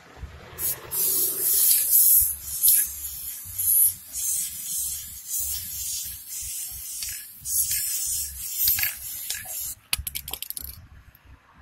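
Spray paint hissing from a can in repeated short bursts through a cut-out stencil. Near the end the hissing stops and gives way to a quick rattle of clicks.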